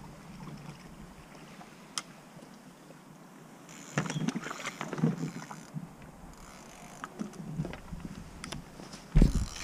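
Knocks and water sounds around a small boat on a river: a click about two seconds in, irregular splashy knocks from about four seconds in, and a heavier thump near the end.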